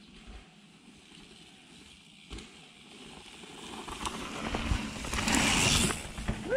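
Mountain bike riding past close by on a rocky dirt trail: tyres crunching over dirt and small stones, growing louder from about four seconds in and loudest as it passes near the end.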